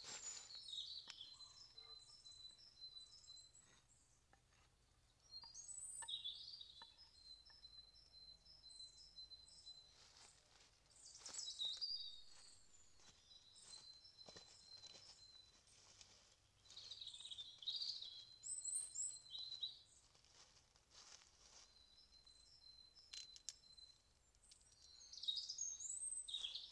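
A songbird singing short chirping phrases with a held high note, repeated about every five to six seconds, over faint scattered clicks and rustles.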